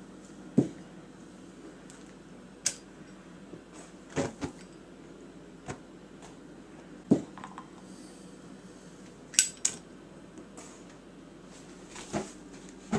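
Scattered sharp clicks and clacks from handling a plastic bubble wand and bubble bottle and a Zippo lighter, over a faint steady hum.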